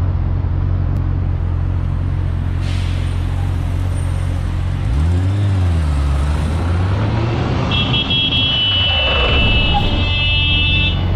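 Motorcycle engine running at low revs in city traffic, heard from the rider's seat, with a short rev rising and falling about five seconds in. A long high-pitched steady tone sounds for about three seconds near the end.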